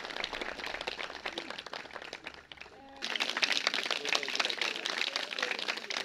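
Applause: many hands clapping, with a few voices over it in the second half and an abrupt change about three seconds in.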